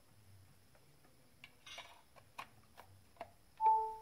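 A few faint, scattered clicks of cables and plugs being handled at a USB charger, then a short electronic beep near the end.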